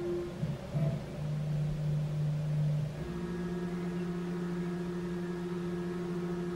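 Stepper motors of a CNC milling machine whining as its axes move: steady pitched tones that change pitch in steps, a lower tone starting about a second in and a higher one about three seconds in, with a couple of light clicks in between.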